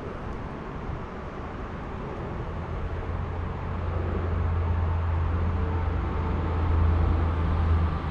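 Steady rushing noise of a flowing river, with a low rumble that builds from about three seconds in.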